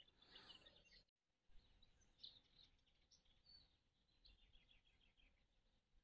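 Near silence, with faint scattered bird chirps.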